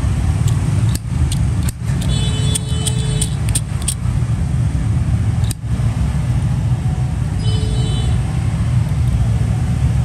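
Steady low rumble of street traffic, with a vehicle horn honking twice: for nearly a second about two seconds in, and briefly again near the end. Scattered light clicks and taps run through it.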